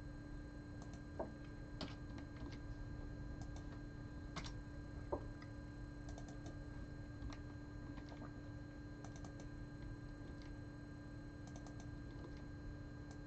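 Faint computer keyboard typing: scattered keystrokes, some single and some in short quick bursts, over a steady low electrical hum.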